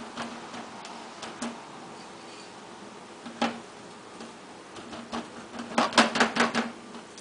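Light clicks and taps of dishes being handled: a ceramic plate and a bowl of spice rub knocked while steaks are rubbed and turned by hand, with a quick run of sharper clicks about six seconds in.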